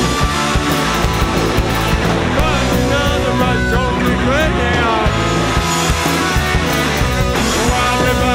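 Rock band playing live and loud: pounding drums, bass and distorted electric guitar, with gliding melodic lines over them.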